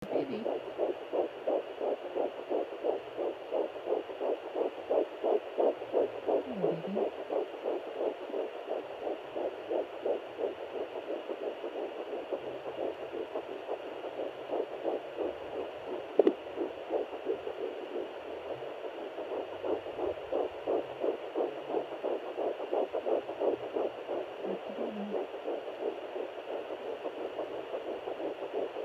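Fetal heartbeat picked up by a handheld pocket fetal Doppler at 9 weeks of pregnancy: fast rhythmic pulses, about three a second, over a steady background hiss. A single sharp knock sounds about sixteen seconds in.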